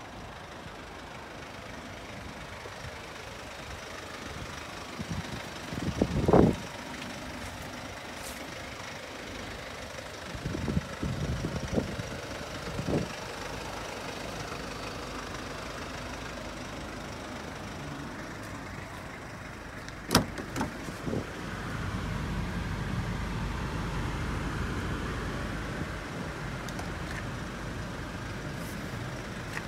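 Steady outdoor traffic noise with a few handling knocks and bumps: a loud thump about six seconds in, a cluster of knocks around twelve seconds, a sharp click about twenty seconds in, and a low rumble growing louder after that.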